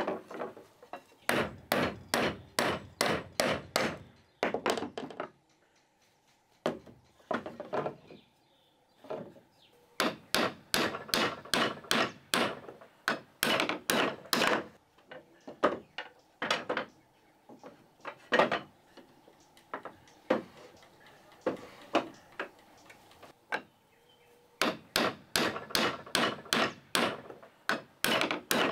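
Hammering on wood: runs of sharp blows, about three a second, broken by short pauses.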